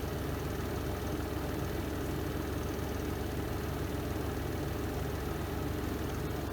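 Spin drum of a Renova semi-automatic twin-tub washing machine running through its spin cycle: a steady low motor hum that does not change.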